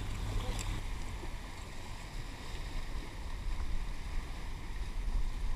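Wind rumbling across the camera microphone over the steady rush of choppy current and small waves washing against jetty rocks.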